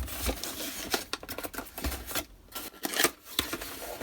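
Packaging being handled while an item is taken out of a box: irregular rustling, scraping and small clicks, with a brief lull a little past the middle.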